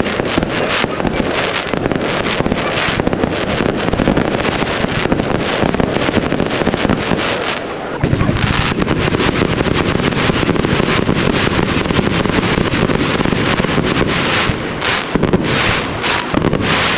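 Aerial fireworks going off in a dense, continuous barrage of bangs and crackling, many reports a second with no pause.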